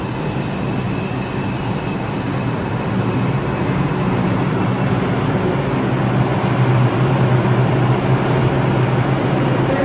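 R142 subway train pulling into the station and slowing to a stop, a continuous rumble with a steady low hum that carries on once it has stopped. A faint high whine fades out in the first few seconds.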